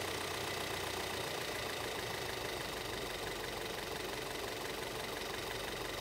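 Audi 2.0-litre turbo four-cylinder engine idling steadily, with a crankcase port plugged off so that extra vacuum is pulled on the crankcase; the idle speed sags under the added vacuum.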